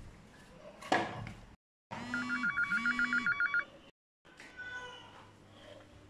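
An electronic phone ringtone: a fast warbling trill over a low two-part tone, lasting under two seconds, with the sound cutting out to dead silence just before and just after it. A sharp knock comes about a second in.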